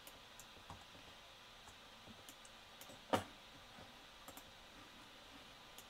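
A few faint computer mouse clicks, with one sharper, louder click about three seconds in, over quiet room tone.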